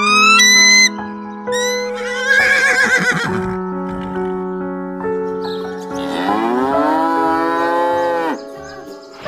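A cow mooing over background music: one long call in the second half rises and then holds before cutting off. Shorter wavering calls come earlier.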